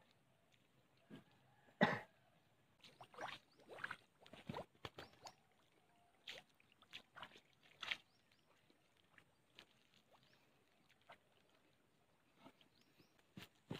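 Footsteps squelching and splashing through shallow water and mud, faint and irregular, loudest about two seconds in.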